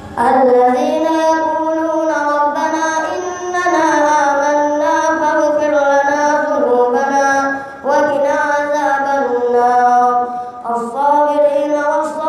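A boy's voice reciting the Quran in Arabic, a melodic, drawn-out chant with long held notes that bend up and down. It starts sharply at the outset and breaks for short breaths about eight and eleven seconds in.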